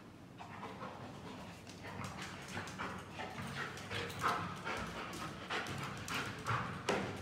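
Labrador panting in rapid, short breaths.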